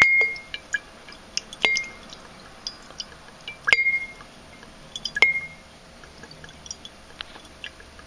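Liquid stop-leak sealant dribbling from its can into a glass jar of water, with small drips and plinks. About four sharp glass clinks each ring briefly at one high pitch.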